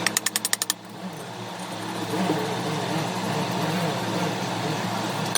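A rapid run of about eight sharp metallic clicks in under a second, then a steady low machine hum.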